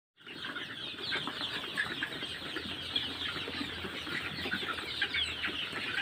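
A large flock of Sonali chickens clucking and chirping together, a dense, steady chatter of many overlapping short calls.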